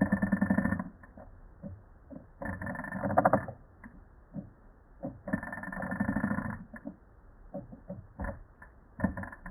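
A cheap 2007 office computer mouse's button clicked very rapidly, about 30 clicks a second, in four bursts of about a second each. Single clicks fall between the bursts.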